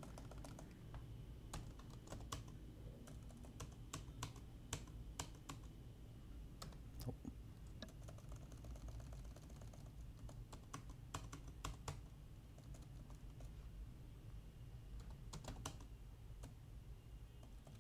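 Computer keyboard keys tapped in faint, irregular short runs of clicks, with a sparser stretch after the middle.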